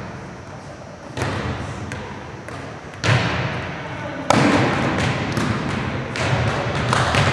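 Volleyball smacked by players' forearm passes and overhead sets, four sharp hits, each trailed by the echo of a large gym.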